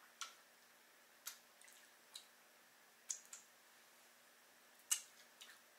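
Short wet mouth clicks and lip smacks of eating with the fingers and licking them, about six in all, the loudest near the end, over a faint steady hum.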